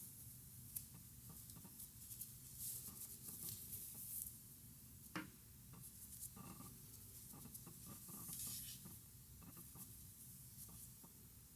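Faint rustling and scraping of cotton yarn being worked with a crochet hook, with soft swishes as the yarn is drawn through and a few light clicks, the sharpest a little after five seconds.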